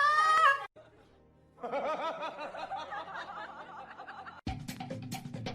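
A short high-pitched call that cuts off abruptly, then a stretch of wavering laughter-like sound, then music with a quick clicking beat starts near the end.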